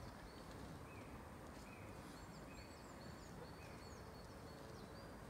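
Faint birdsong outdoors: many short whistled notes, some level and some sliding down, from more than one bird, over a low steady background noise.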